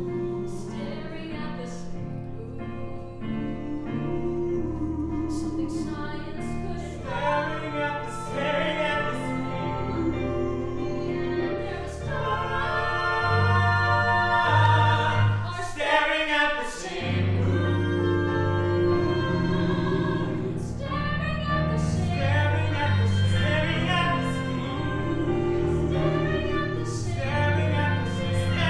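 Sung voices over instrumental accompaniment with steady low bass notes, in a song with a brief break in the low notes about halfway through.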